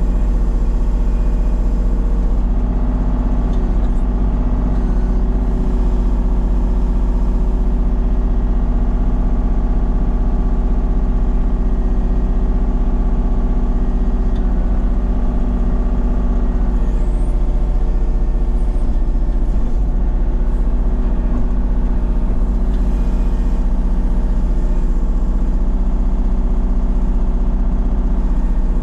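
Kubota KX033-4 mini excavator's three-cylinder diesel engine running steadily at working speed while the hydraulic boom and bucket pull brush, heard from the operator's seat. The engine note shifts slightly under load about two and a half seconds in and again a little past halfway.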